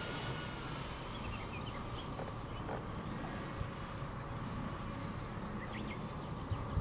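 Electric RC model plane (ROC Hobby F2G Super Corsair) flying far off, its motor a faint steady whine over low wind rumble on the microphone.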